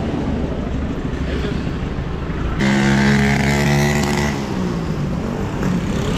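Street traffic rumbling; about two and a half seconds in, a loud vehicle engine close by runs at a steady pitch for under two seconds, then drops in pitch as it passes.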